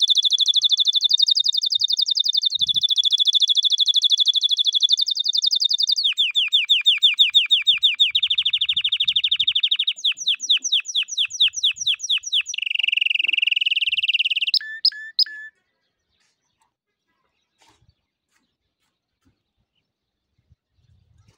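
Domestic canary singing a long song of rapid high trills and rolls, switching to a new repeated phrase every few seconds. It ends with a few separate notes and stops abruptly about fifteen seconds in.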